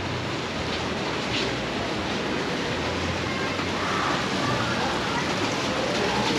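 Steady rush of splashing water from a stone fountain and its water channel, with faint voices of passers-by in the second half.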